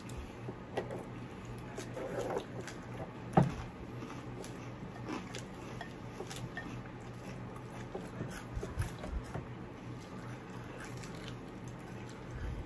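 Eating sounds: chewing and small clicks of utensils against bowls, with one sharper knock a few seconds in, over a faint steady low hum.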